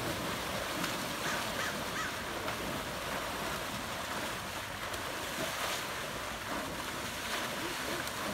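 Water splashing and sloshing as two young elephants wade and play in a pool, under a steady rushing noise.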